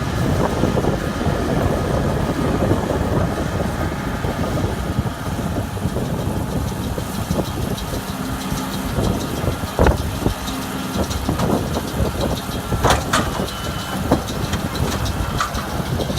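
Allis-Chalmers 7060 tractor's diesel engine running steadily, with a few sharp knocks, the loudest about ten and thirteen seconds in.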